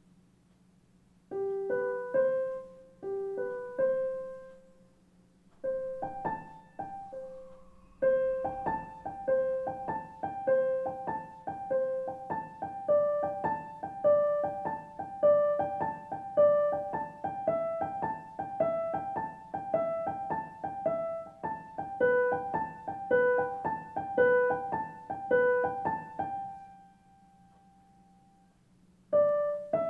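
Background piano music: a gentle melody of evenly spaced single notes that begins about a second in, breaks off for a couple of seconds near the end, then starts again.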